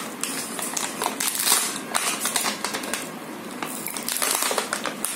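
Clear plastic blister packaging on a toy gun set crinkling and crackling as fingers press and pick at it, in a quick irregular run of small clicks.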